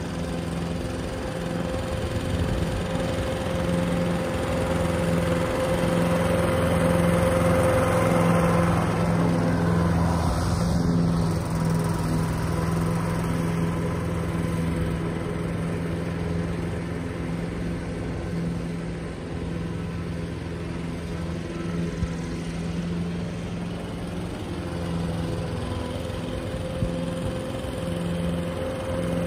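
Toro ProStripe 560 walk-behind rotary mower's petrol engine running at a steady speed while cutting grass. It grows louder as the mower passes close, about a third of the way in, then eases off as the mower moves away.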